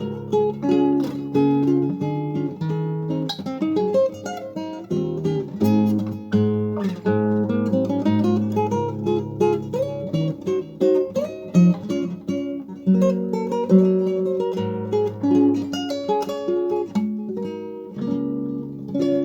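Yamaha G-225 nylon-string classical guitar being played: a picked melody over held bass notes, with a chord struck near the end that is left ringing.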